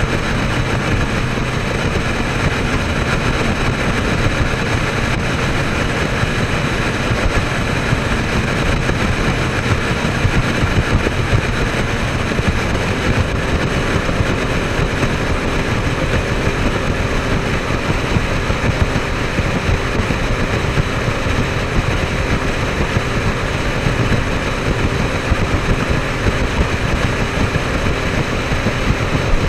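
Runabout motorboat's engine running steadily while the boat is under way, with no change in pitch.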